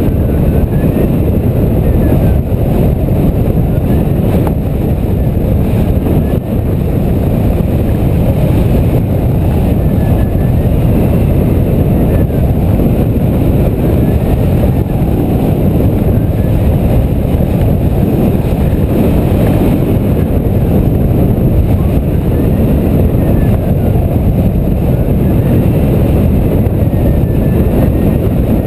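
Steady, loud rush of airflow buffeting the microphone of a camera mounted on a hang glider in flight.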